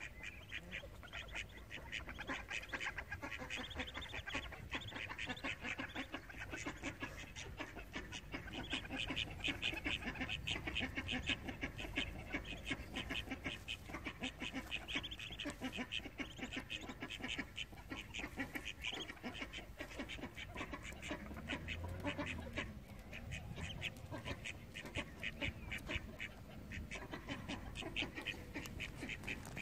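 Muscovy and Indian runner ducks calling: a steady run of quick repeated calls, loudest in the middle and easing off in the second half.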